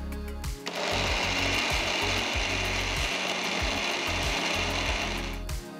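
Electric mixer grinder (mixie) running steadily, grinding onions, green chillies, ginger, garlic, coriander and mint into a thick paste without water. It starts about a second in and stops shortly before the end.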